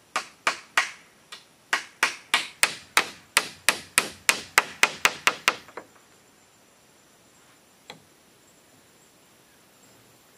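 Hammer blows on the split-bamboo ridge cap of a bamboo roof: about nineteen sharp, ringing strikes at roughly three a second that stop about six seconds in, then one lone knock near eight seconds.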